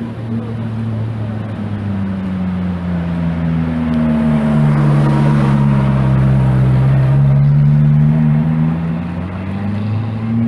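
Ferrari 430 Scuderia's naturally aspirated V8 running at low revs while cruising, a deep engine note that swells to its loudest midway, dips in pitch and then climbs again near the end.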